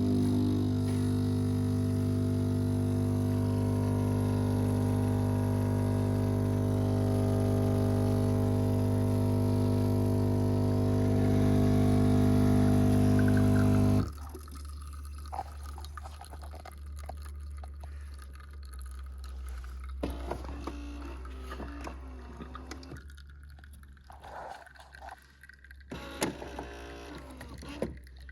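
Philips EP2231 automatic coffee machine running with a loud, steady buzz that cuts off abruptly about halfway through. After it, quieter trickling and dripping with small clicks follow.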